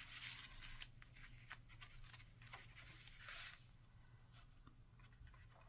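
Faint rustling and light ticks of paper pages being handled and turned in a small handmade paper journal, with a slightly fuller rustle about three seconds in.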